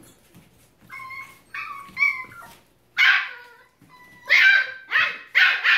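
Keeshond puppies yipping and barking while they play-fight. There are a few short, high yips in the first half, then a run of louder barks from about three seconds in.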